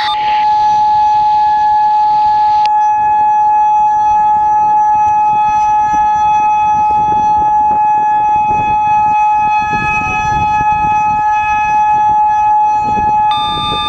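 Federal Signal Modulator 6024 electronic outdoor warning siren sounding a single steady, unwavering tone during its test. A hiss underneath stops suddenly about three seconds in.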